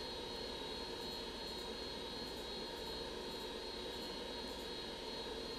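Steady background hum and hiss with a faint high whine, with a few faint ticks.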